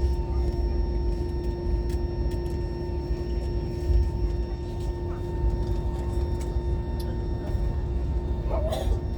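Steady jet airliner cabin noise after landing: a low rumble with a constant hum from the engines and cabin air, with a few faint clicks and a brief voice near the end.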